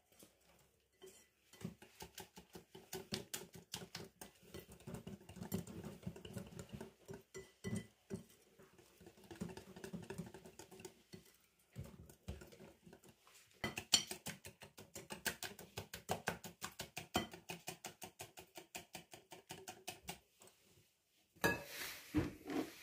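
Stainless steel wire whisk beating thick batter in a glass bowl: rapid clicking and tapping of the wires against the glass, with brief pauses, stopping shortly before the end.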